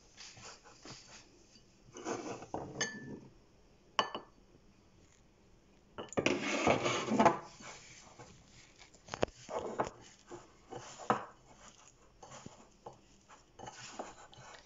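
Hands mixing and kneading wheat-flour dough with drumstick leaves in a bowl: irregular rubbing and scraping against the bowl, with two sharp knocks, the first ringing briefly, and a louder burst of scraping about six seconds in.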